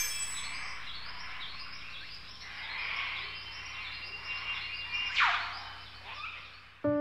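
Wildlife ambience: many short chirping calls repeating over a steady hiss, with one sharp falling sweep about five seconds in. Music with sustained pitched notes cuts in just before the end.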